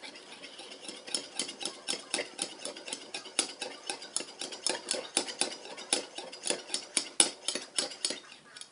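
A spoon stirring borax into water in a small container, clicking against its sides about four times a second from about a second in, as the borax is dissolved into slime activator.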